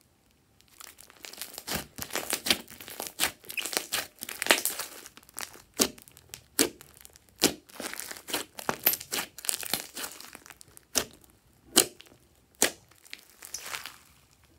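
Glossy slime being squeezed and kneaded by hand, giving wet squishes and a quick run of sharp pops and crackles as its air pockets are pressed out, starting about a second in.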